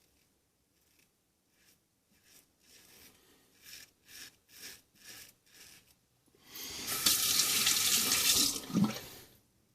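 Several short, faint scraping strokes of a Merkur 39c double-edge safety razor cutting stubble, then a tap running into a sink, loud and steady for about three seconds before being shut off.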